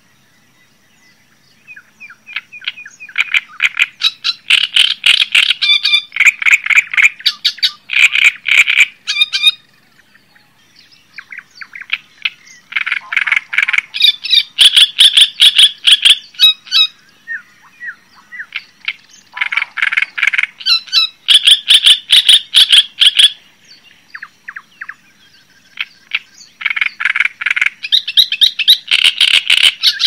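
A songbird singing in phrases of rapid, harsh chattering notes, each phrase a few seconds long with short pauses between.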